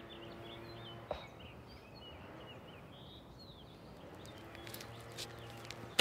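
Small birds chirping over a faint steady background hum, with a single knock about a second in and footsteps near the end; the car's engine is not yet running.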